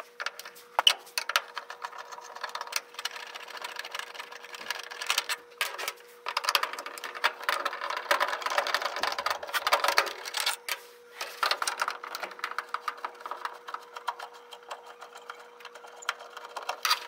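Screwdriver backing out the mounting screws of a furnace draft inducer blower housing: rapid, dense clicking and scraping in several runs with short pauses between them.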